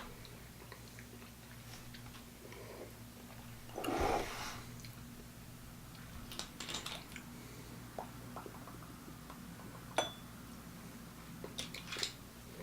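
Quiet room with a faint steady hum, broken by small tasting sounds: a short mouth sound, like a sip, about four seconds in, and a few light clicks near the end.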